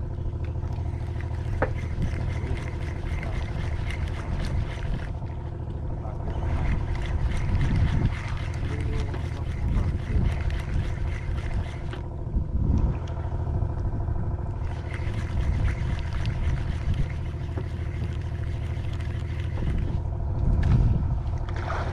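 A fishing boat's engine running steadily at an even speed: a constant low drone with a steady hum.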